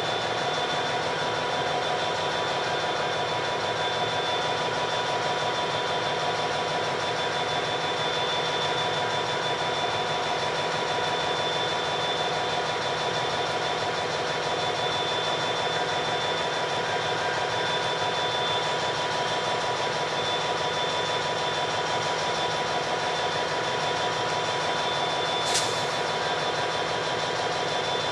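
Diesel freight locomotive engine running steadily at idle, with a steady high whine over the engine sound. A single short click near the end.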